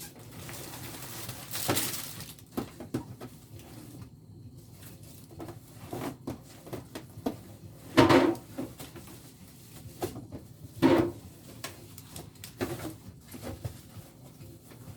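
Frozen food packages being handled and stacked in a freezer: irregular knocks, bumps and rustling, with louder bumps about eight seconds in and again near eleven seconds.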